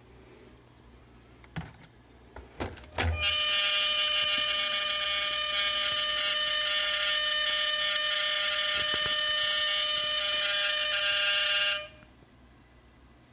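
A 3DR Solo drone's camera gimbal motors giving out a loud, steady electronic whine of several held tones for about nine seconds, then cutting off suddenly: the strange gimbal noise that points to a gimbal fault. A few clicks come just before it starts.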